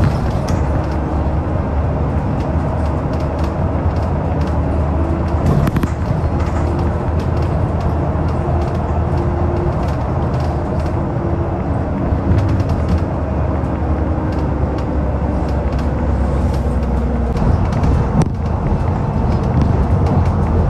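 Steady engine drone and road noise from inside a moving bus, with a brief knock about six seconds in.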